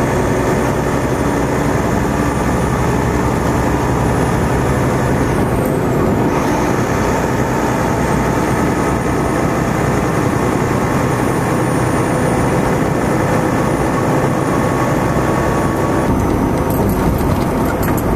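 Semi truck running at road speed, heard from inside the cab: a steady engine drone with road noise. A thin high whine dips in pitch about six seconds in and then returns.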